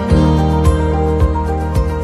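Instrumental background music with a steady beat, about two beats a second under sustained notes.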